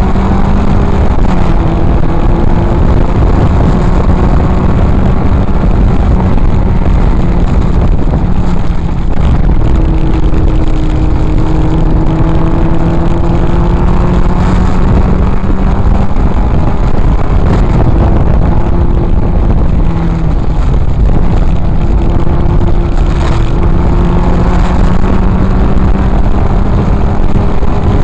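Triumph TR4A's four-cylinder engine running hard at racing speed, heard from the open cockpit. The engine note rises and falls several times through gear changes and corners, over a constant low rumble of wind and road noise.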